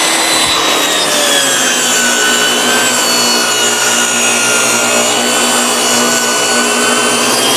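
Portable jobsite table saw ripping a board lengthwise, its motor running with a steady whine. The pitch sags a little through the middle of the cut as the blade takes the load and climbs back near the end.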